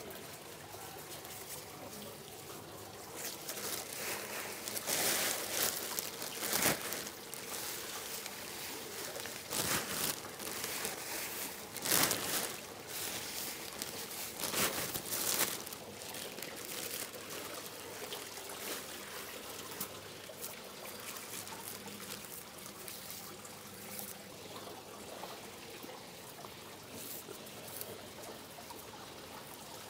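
Running water trickling and splashing, with uneven louder surges in the first half, then a steadier flow.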